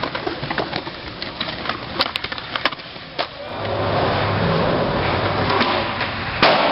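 Skateboard on concrete: wheels rolling with scattered clacks and knocks of the board, then a steadier, louder rumble from about three and a half seconds in, and a loud smack near the end.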